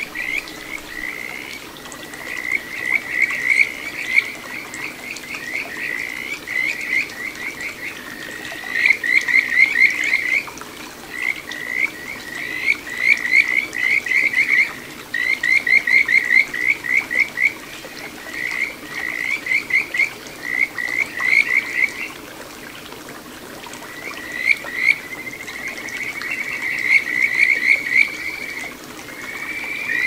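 Kajika frog (Buergeria buergeri) calling in breeding season: runs of quick, clear, whistle-like notes, each rising slightly in pitch, in bouts of a second or two repeated throughout, with a smoother, longer trill near the end.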